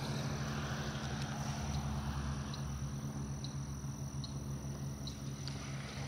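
Pond-side ambience: a steady low frog chorus with a thin insect drone over it, and a few faint ticks about once a second through the middle.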